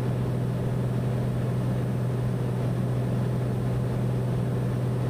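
Steady in-cockpit drone of a Cessna 208B Caravan's Pratt & Whitney PT6A turboprop engine and propeller in descending flight, with a strong low hum under an even rushing noise.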